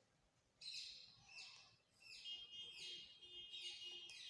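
Faint bird chirping: a run of short, downward-sweeping chirps, about two a second, beginning shortly after the start.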